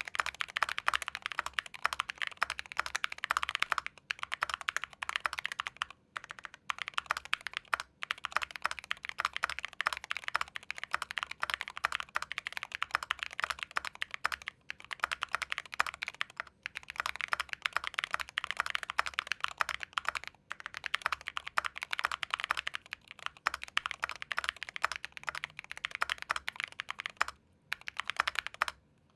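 Typing test on a Monsgeek M2 full-size aluminium-case, gasket-mount mechanical keyboard with JWICK Splash Brothers switches, PBT keycaps and foam inside: a rapid, continuous run of keystrokes with a few brief pauses. It is a loud-sounding board.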